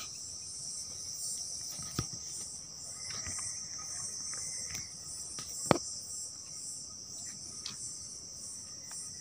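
Steady high-pitched chorus of night insects in the forest, with a few sharp clicks over it, the loudest a little after the middle.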